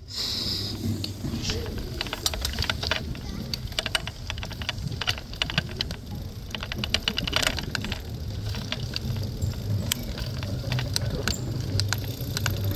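Oslo Bysykkel city bike rattling as it is ridden, with many irregular clicks and knocks over a steady low rumble.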